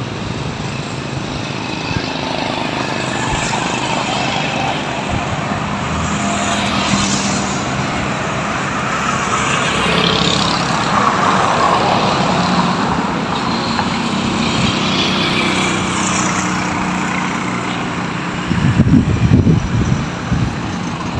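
Highway traffic passing a roadside spot, with engine drone and tyre noise. It swells to its loudest about halfway through as a motorcycle tricycle goes by. Near the end there are a couple of seconds of loud low buffeting.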